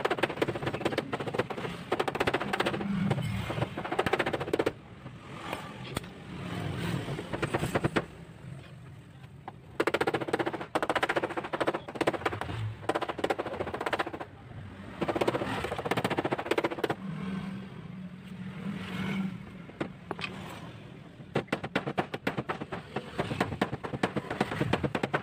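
Body hammer tapping rapidly on the dented tailgate panel of a Toyota Alphard, in runs of quick metallic taps broken by short pauses. This is panel beating to knock the dent back out before painting.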